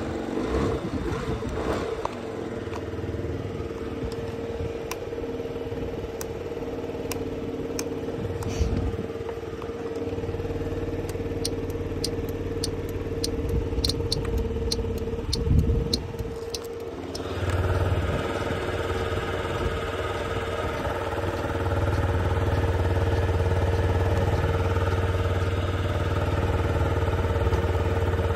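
Yamaha Vino 50cc scooter engine running steadily, with a run of light clicks in the middle. Its note grows louder and fuller about two-thirds of the way through.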